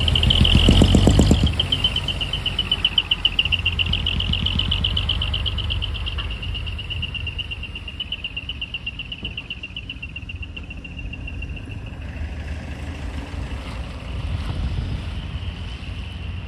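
Heavy truck engine running with a pulsing low rumble that is loudest at first and then eases off. Over it sits a steady high-pitched warbling tone that slowly fades.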